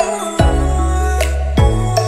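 Music with held deep bass notes and a steady beat of sharp percussive hits.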